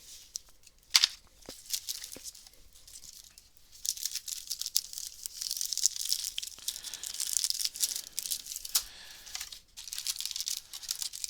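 Booster-pack foil wrapper being crinkled and torn open, a dense crackling that starts about four seconds in, after a few light clicks of handling.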